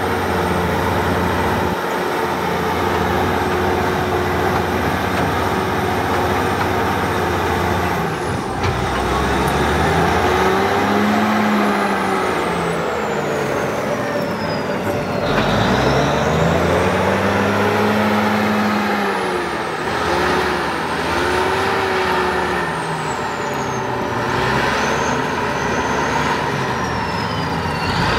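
Large diesel engine of a Clark Michigan 475B wheel loader running, revving up and falling back twice, about ten and seventeen seconds in. A high whine glides up and down with it.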